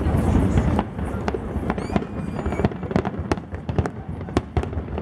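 Aerial firework shells bursting in quick succession, many sharp bangs and crackles at uneven intervals over a low rumble, with a short whistle about two seconds in.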